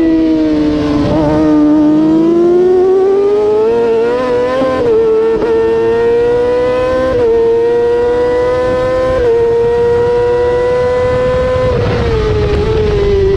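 Race motorcycle engine at high revs, heard loud from an onboard camera beside the exhaust silencer. The note climbs as the bike accelerates, holds fairly level with a couple of brief shifts in pitch in the middle, then drops near the end as it slows for a corner.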